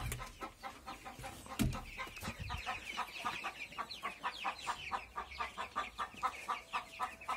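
A flock of young chicks peeping continuously: a rapid run of short, high, downward-sliding chirps, several a second, from many birds at once. There is a dull bump about a second and a half in.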